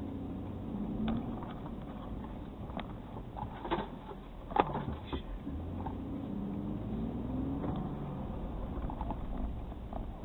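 Car engine and road noise heard from inside the cabin, the engine note rising as the car gathers speed, once shortly after the start and again about six to seven seconds in. A few sharp knocks come in the middle, the loudest about four and a half seconds in.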